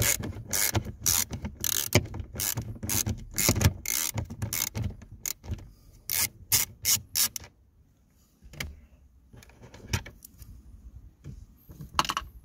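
Ratchet clicking in quick, even strokes, about three a second, as it undoes an 8 mm screw; the clicking stops about seven seconds in, and a few lighter clicks follow.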